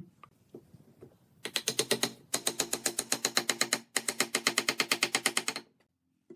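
A ratcheting mechanism clicking rapidly and evenly, about eleven clicks a second, in three runs with two short breaks.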